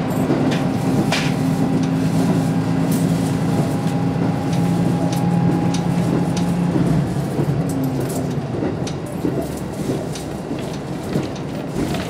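KiHa 54 diesel railcar under way, heard inside the car: the diesel engine drones steadily, then the drone fades about seven seconds in, leaving the rumble of wheels on the track with scattered clicks.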